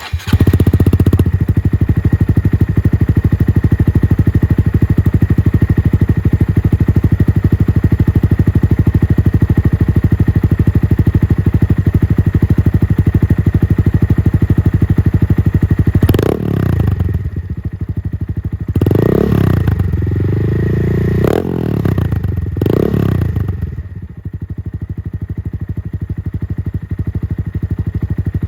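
Honda Monkey's single-cylinder engine running through a Yoshimura RS-3 full exhaust, idling steadily, then blipped up several times in quick succession about halfway through, before settling back to idle.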